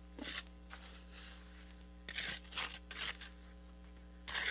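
Steel trowel scraping wet mortar into and across a brick joint: a short scrape at the start, three quick strokes about two seconds in, and another near the end.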